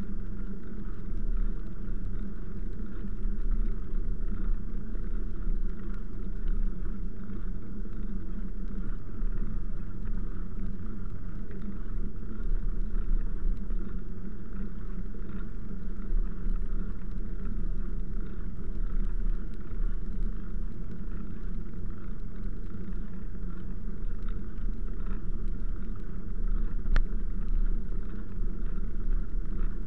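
Steady rumble and hum of a vehicle being ridden along a wet paved footpath, with a single sharp click near the end.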